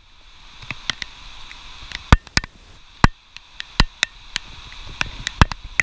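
Rain falling, with loud, irregular sharp taps of drops striking close to the microphone over a faint steady hiss.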